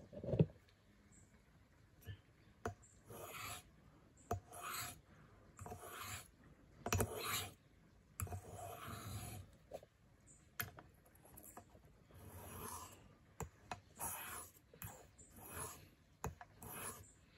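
Knife blade of a Leatherman PST drawn across a sharpening surface in about a dozen uneven scraping strokes, with a few light clicks between them.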